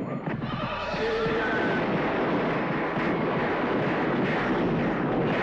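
A steady, dense roar of noise from a film excerpt's soundtrack, with a few short tones about a second in.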